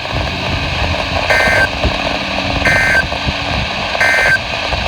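Emergency Alert System digital data tones: three short, identical buzzy bursts about a second and a half apart, the end-of-message code that closes a tornado warning broadcast, over steady radio hiss and hum.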